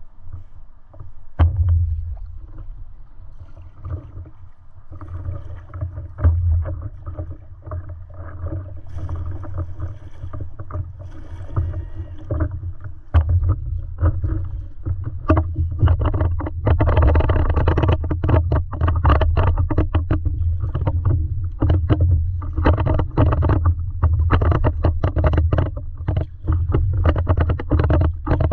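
Water slapping and splashing against a stand-up paddleboard's hull as it is paddled, with the paddle dipping and pulling through the water, over a steady low rumble. The splashing gets louder and busier about halfway through, once she is standing and paddling harder.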